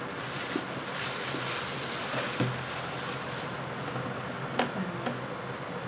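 Thin plastic cover rustling and crinkling as it is pulled off a plastic bowl, with a few light clicks.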